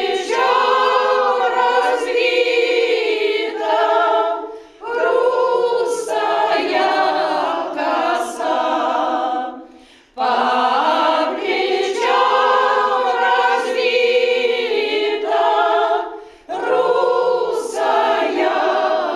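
Ensemble of elderly women singing unaccompanied. The song runs in long phrases, with three short breath pauses between them.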